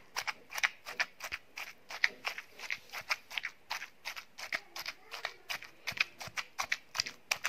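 Wooden pestle pounding and mixing a moist chutney of chopped vegetables and herbs in a stone mortar (chattu), a quick, uneven series of short knocks, a few a second.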